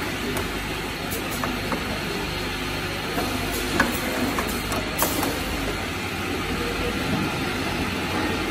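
Automatic four-nozzle liquid filling machine running, with a steady mechanical noise from its conveyor and a few sharp clicks here and there.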